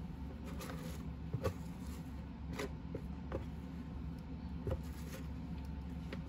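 Silicone spatula scraping and tapping against plastic bowls as chunks of bar soap are knocked into a tub of water: a few faint, scattered taps and scrapes over a low steady hum.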